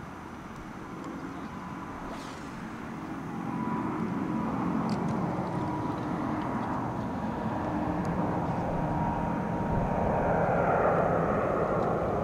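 Airbus A350-1000's Rolls-Royce Trent XWB-97 turbofans at takeoff power as the airliner climbs out, the jet noise growing steadily louder throughout, with a steady high whine through the middle.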